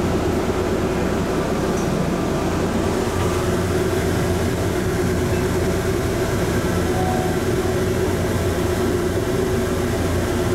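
Atlanta airport Plane Train automated people mover running along its guideway tunnel: a steady rumble with a constant motor hum.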